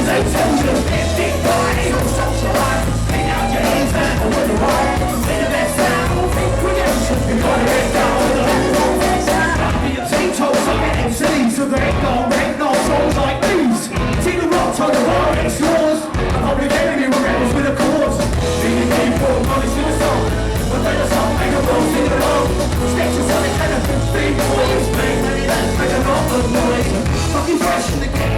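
Live hip hop band performance: full band music with vocals, loud and continuous; the low end thins out for a few seconds around the middle.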